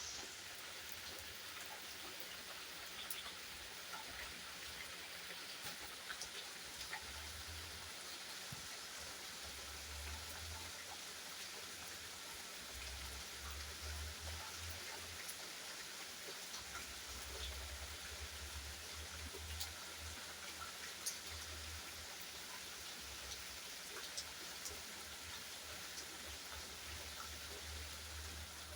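Steady rain falling, with many separate drops tapping close by, and an on-and-off low rumble underneath.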